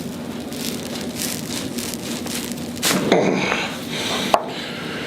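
Spinal joints cracking during a hands-on chiropractic adjustment: a few small pops amid rustling of the body on the treatment table, a louder burst of movement about three seconds in, and one sharp crack a little past four seconds.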